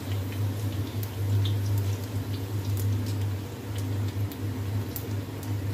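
Chopped garlic frying in hot oil in an iron wok, sizzling with scattered small pops, over a steady low hum.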